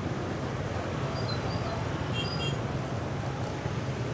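Steady din of dense motorbike and scooter traffic, many small engines running at crawling speed close by. A few faint high chirps come through about a second or two in.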